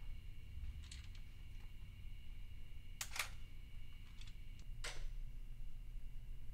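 Steady low hum and a faint, steady high-pitched whine, with four sharp clicks or knocks a couple of seconds apart, the second a quick double.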